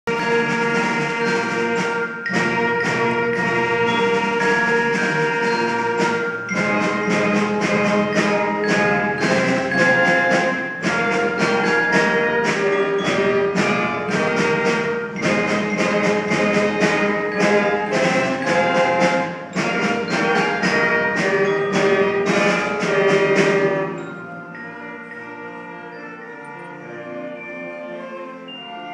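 A junior high orchestra of flute, cellos and double bass playing live, with sharp struck accents about twice a second over sustained notes. About 24 seconds in it drops to a much softer, sustained passage.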